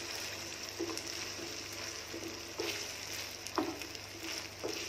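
Minced meat and potato cubes sizzling in a wok while a wooden spoon stirs them, scraping and knocking against the pan about six times.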